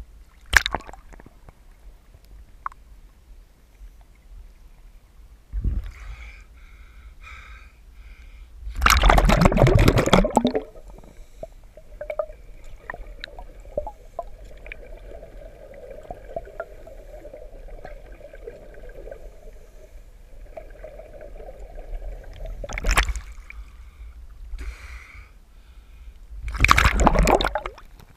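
Underwater sound of scuba divers breathing through their regulators in a pool: exhaled bubbles rush out loudly, twice for a second or so (about a third of the way in and again near the end), with a few shorter gurgles and a faint steady hum in between.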